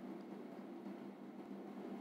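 Faint steady background hiss with a low hum: room tone.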